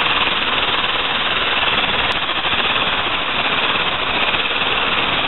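Electric hand mixer running steadily, its beaters working flour into a cake batter.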